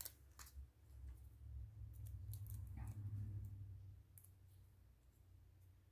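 Faint scattered clicks and light crackle of fingers handling a Color Street nail polish strip, working it off its plastic backing, with a soft low rumble of handling through the middle.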